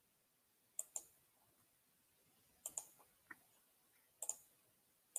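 Computer mouse clicking, mostly in quick double clicks, four or five times with near silence in between.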